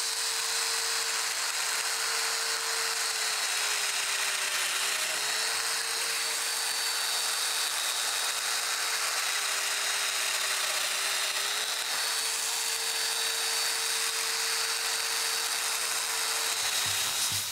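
Domino-style floating-tenon joiner (mortising machine) running steadily while cutting mortises into a 45° mitred plywood edge. Its tone dips briefly a few times, and the motor stops near the end.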